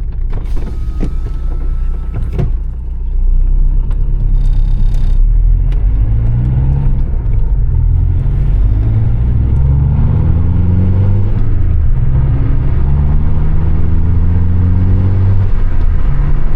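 VW Jetta with a freshly rebuilt manual transmission accelerating through the gears, heard from inside the cabin: the engine pitch rises, drops at each upshift and climbs again, several times over. A few sharp clicks come in the first couple of seconds.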